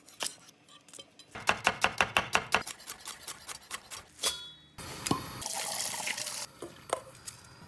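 A chef's knife chopping shallots on a wooden cutting board in a quick run of strokes, about seven a second. A few seconds later, red wine is poured into a hot steel pot of shallots with a rush of pouring and sizzling, the wine going in for a bordelaise sauce.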